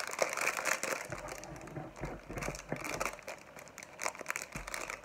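Clear plastic bag of dried loose-leaf tea crinkling in the hands as it is handled, with irregular crackles.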